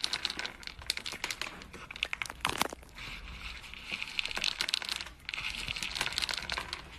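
Cat crunching dry kibble up close: a rapid, uneven crackle of chewing, with pellets shifting in a plastic bowl. The crackle eases off briefly about three seconds in and again just past five seconds.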